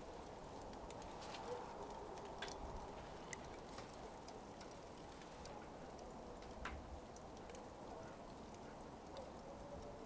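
Burning coals crackling faintly: sparse, irregular small pops and ticks over a soft, steady low rush of the fire.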